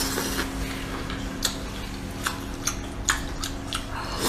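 A person chewing and biting into boiled octopus, making wet smacking mouth sounds and a string of short, sharp clicks, with a faint steady hum behind.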